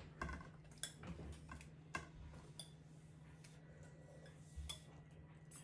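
A few faint, irregular clicks of chopsticks against a stainless steel saucepan as noodle soup is tipped out of it into a ceramic bowl, over a low steady hum.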